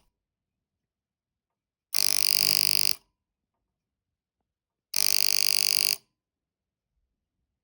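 The compact integral buzzer of a 1950s Ericsson Ericofon DBJ 500 telephone sounding twice, each a buzz of about a second, three seconds apart, with silence in between.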